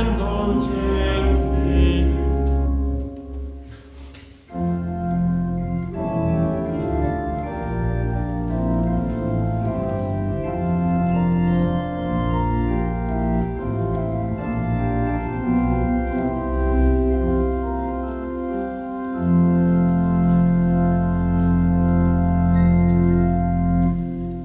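Church organ playing held chords. It dips briefly about three to four seconds in, then comes back, and a deep bass enters for the last few seconds.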